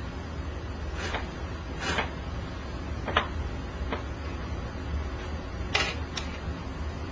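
About six short clicks and rustles as hands handle the candles and alligator-clip leads on a wooden tabletop, over a steady low hum.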